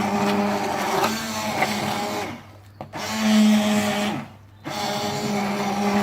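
Electric hand blender puréeing cooked vegetable soup, its motor running with a steady hum. It cuts out twice briefly, about two and a half and four seconds in, and winds back up each time.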